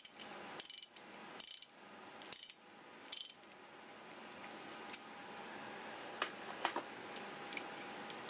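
A 1/2-inch drive ratchet wrench clicking in four short bursts as its handle is swung back and forth, with an impact socket on an extension fitted. A few single sharp metal clicks follow about six seconds in.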